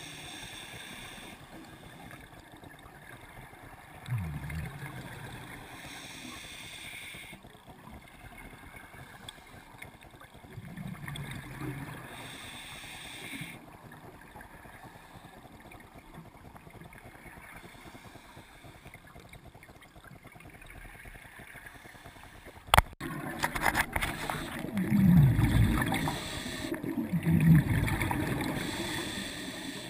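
Scuba regulator breathing heard underwater: a hissing inhale every few seconds, each followed by the bubbling of exhaled air, with the bubbling loudest in the last several seconds. There is one sharp click a little past two-thirds of the way through.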